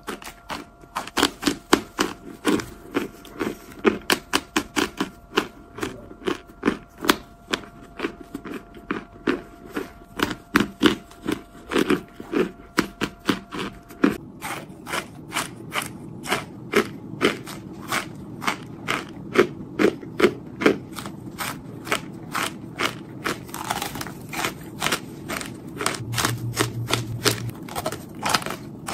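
Chunks of compressed starch bitten and chewed close to the microphone: a quick, steady run of sharp, squeaky crunches, two or three a second.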